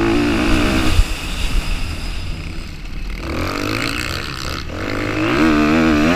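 Off-road motorcycle engine heard from the rider's helmet, revving high, dropping about a second in, then pulling up through the revs again twice as the bike accelerates across the grass, over a constant low rumble.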